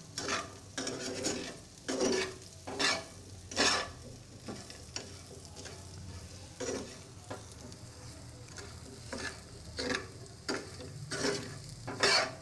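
A spatula scraping and turning diced purple yam (pendalam) frying in oil in a shallow pan, a scrape every second or so with a lull midway, over a light sizzle.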